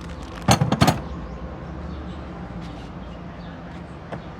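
A quick run of sharp knocks about half a second in, and a second run just before the first second, over a steady low hum.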